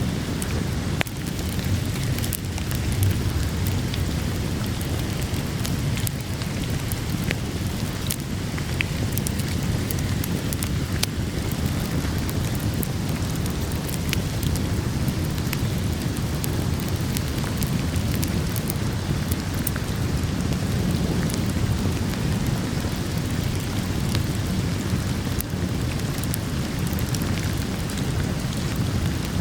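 Steady rain falling, with scattered sharp crackles and pops from a wood fire throughout.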